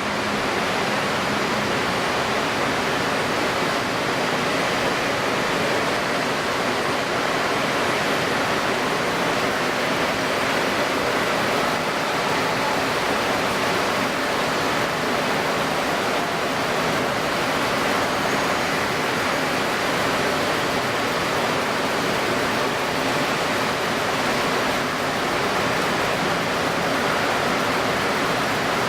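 Steady rushing noise of strong wind and wind-stirred, choppy water, even and unbroken, with a faint steady low hum underneath.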